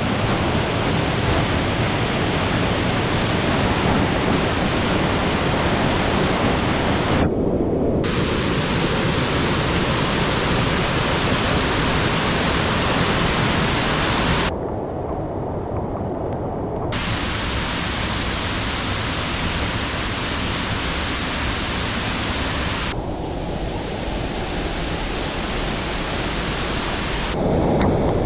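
Steady rushing water from a waterfall or river. The hiss abruptly changes tone a few times, at about 7, 14, 23 and 27 seconds in.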